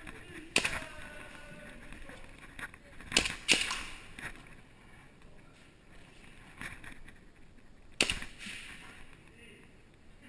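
Airsoft guns firing, a series of sharp pops: one about half a second in, two close together around three seconds in, and another near eight seconds in.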